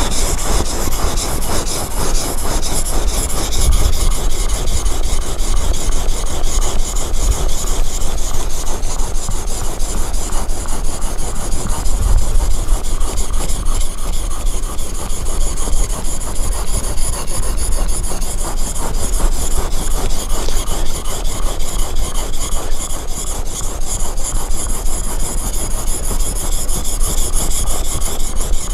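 A chisel blade being sharpened on a wet whetstone: a steady run of fast back-and-forth scraping strokes of steel on stone.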